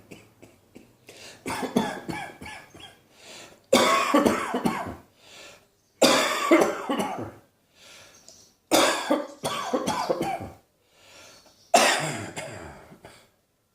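A person coughing hard in repeated fits. There are about five bursts, each of several rapid hacks, spaced two to three seconds apart.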